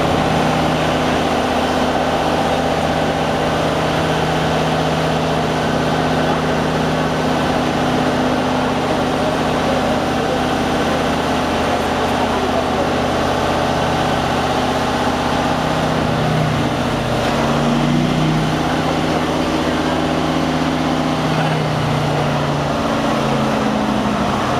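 Liebherr T 282 C mining haul truck's diesel engine running steadily under load as its hydraulic hoist raises the dump body. The engine note shifts and wavers about two-thirds of the way through.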